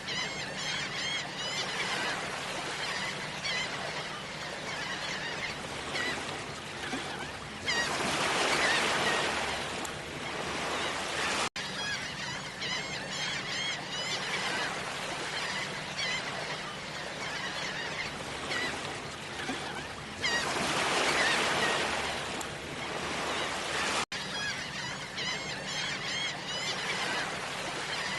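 Beach ambience: many birds calling over and over above the wash of surf, with a wave swelling and breaking louder twice. There are two brief dropouts in the sound, each right after a wave.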